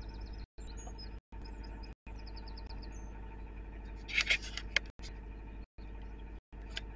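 A steady low engine hum, with small birds chirping over it in the first few seconds and again near the end, and a louder harsh burst about four seconds in. The sound cuts out briefly several times.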